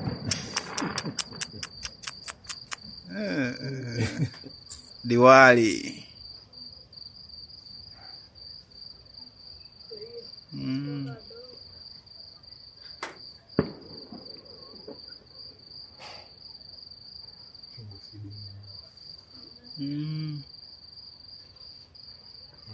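Diwali fireworks going off: a sharp bang at the start, then a rapid run of crackling pops for about three seconds, and a few single pops later on. Crickets keep up a steady high chirping throughout.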